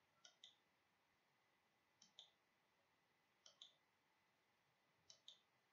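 Faint short clicks in pairs, four pairs about a second and a half apart.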